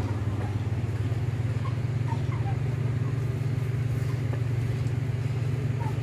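An engine running steadily, a low even drone with a fast regular pulse. Faint short calls from the chickens now and then.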